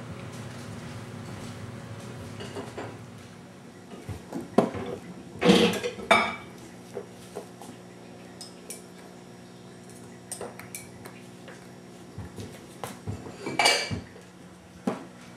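Dishes and cutlery clattering and clinking in short irregular bursts, loudest about five to six seconds in and again near the end, with a steady low hum in the first few seconds.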